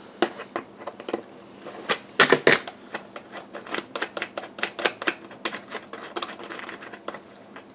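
Irregular clicks and taps of hard plastic as the shade-control knob is pried off an ESAB Origo-Tech welding helmet's plastic shell and the shell is handled, with a louder run of clicks about two seconds in.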